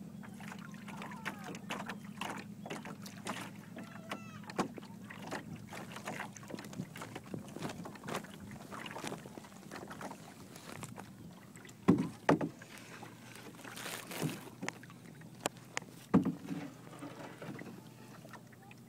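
Water splashing and lapping against a sailing canoe's hull, with irregular knocks and creaks from the boat's wooden spars and rope rigging. A few louder knocks come near the middle and again later, over a steady low hum.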